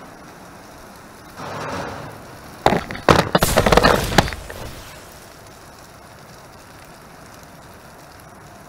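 Fiery blast sound effect: a burst of crackling noise about three seconds in, lasting about a second, preceded by a softer rush of noise and a few sharp clicks.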